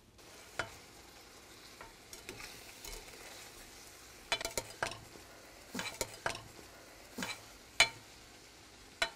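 Nectarine slices and sugar cooking down into a syrupy sauce in a stainless saucepan: a steady faint bubbling sizzle, with a spatula stirring and knocking sharply against the pan several times, mostly in the second half.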